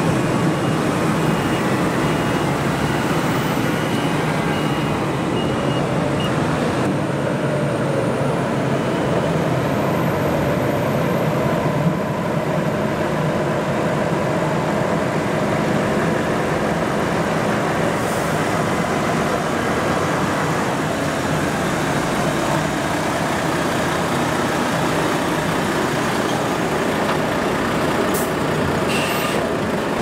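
Diesel engines of heavy silage machinery running steadily: a wheel loader, Claas tractors and a tipper truck working at a maize silage clamp.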